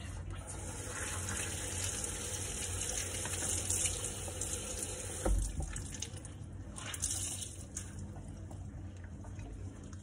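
Kitchen tap running into the sink while a microfibre cloth is rinsed and wrung out under it, the water easing off about eight seconds in. A single dull knock against the sink about five seconds in.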